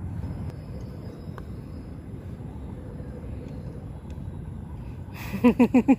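Steady low background rumble on a golf green, with a few faint ticks. About five seconds in, a person's voice breaks in with a short, loud, quick run of syllables, the loudest sound here.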